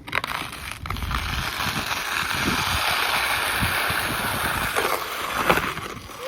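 Skateboard wheels rolling over wet, slushy pavement: a steady hiss, with a sharp clack right at the start and a few knocks near the end, the loudest about five and a half seconds in.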